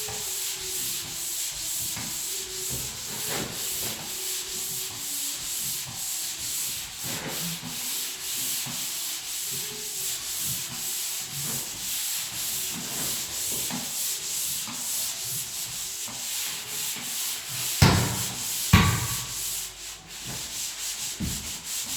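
Drywall being hand-sanded: rapid back-and-forth strokes of abrasive over dried joint compound, spot-sanding over the screw heads. Two loud knocks come close together near the end.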